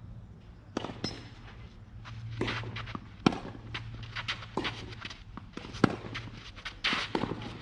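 Tennis rally: sharp racket-on-ball hits. The two loudest, about three and six seconds in, are the near player's own strokes, with fainter ball bounces and more distant hits between them, and shoes scuffing on the sandy court surface.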